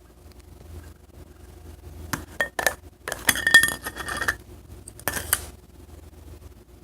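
Hard objects clinking and rattling against a container: a few sharp clicks about two seconds in, a denser clatter with a ringing note from about three to four and a half seconds, and a short clatter about five seconds in.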